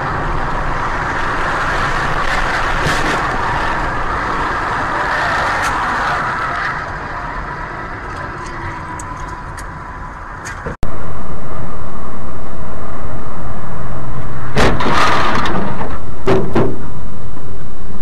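Car road and engine noise picked up by a dashcam while driving at motorway speed, with a few short knocks. About eleven seconds in, it cuts abruptly to a much louder, clipped, steady rushing noise with two brief surges near the end.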